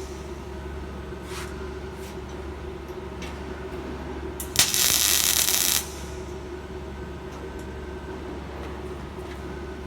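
Steady hum of welding equipment with a few light metal clicks, and about halfway a single loud crackling hiss of an electric arc lasting about a second, as in a short tack weld.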